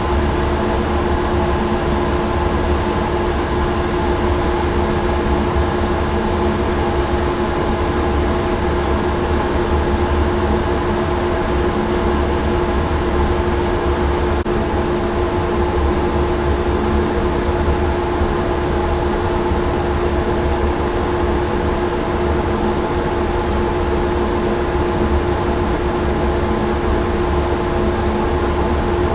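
Steady machine hum of a ventilation or air-handling system: one constant mid-pitched tone and a few fainter ones over a low rumble, unchanging throughout.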